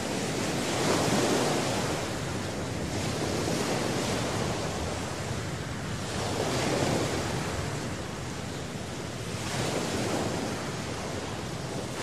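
Small waves washing onto a sandy beach, the surf rising and falling every few seconds, with some wind on the microphone.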